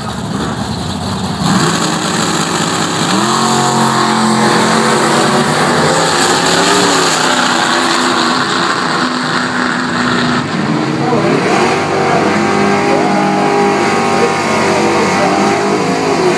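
Drag race cars launching off the starting line and accelerating hard down the strip at full throttle. The engine note jumps up about a second and a half in, then climbs in pitch through several rises as the cars pull away.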